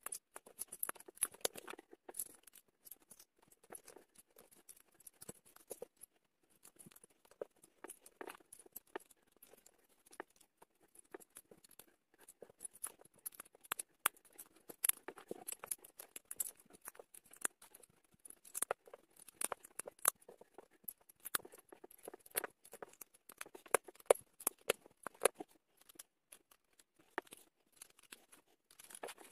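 Small plastic LEGO bricks clicking, tapping and rattling as loose pieces are picked from a pile and pressed together by hand, in many irregular sharp clicks.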